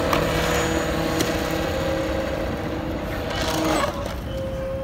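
Small electric motor and propeller of a homemade foam RC plane running with a steady whine, then cutting off about four seconds in. Two sharp knocks come in the first second or so.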